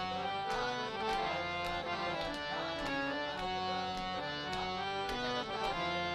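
Harmonium playing a melody of held reed notes, accompanied by pakhawaj barrel drums with regular sharp strokes.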